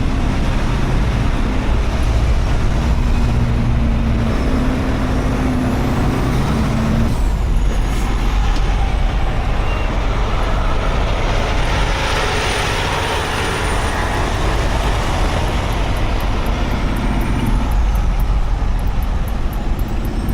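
Heavy tow truck's diesel engine running steadily as it drives, with road noise. Fast, regular ticking comes in near the end.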